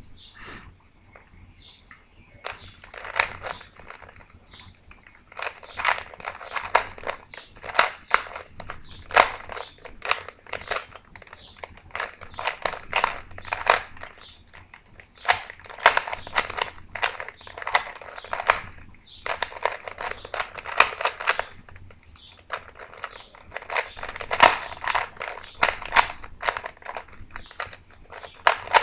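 A Rubik's Cube being turned fast by hand during a solve: rapid runs of plastic clicking and clacking as the layers snap round, in bursts of a few seconds with short pauses between.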